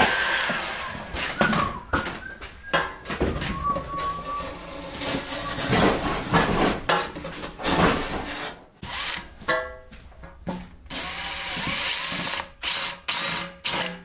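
A heat gun blows steadily for about the first second. A hand scraper then scrapes and peels heat-softened vinyl sheeting off an aluminum street-sign panel in repeated irregular strokes.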